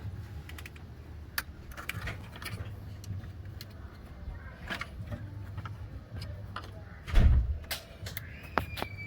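Scattered metallic clicks and clatter of hand tools and parts during work on a car, over a low steady hum. One heavy thump comes about seven seconds in, and a short squeak starts near the end.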